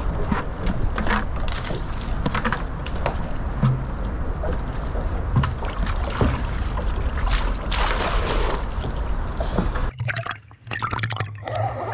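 Water sloshing and lapping against the hull of a small skiff, over a steady low rumble, with scattered light knocks and clicks. About ten seconds in the sound cuts abruptly to a quieter track with a steady low hum.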